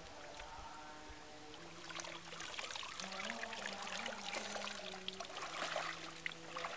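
Water splashing and pouring off a plastic jar fish trap as it is lifted out of the pond and drained, starting about two seconds in, over soft background music.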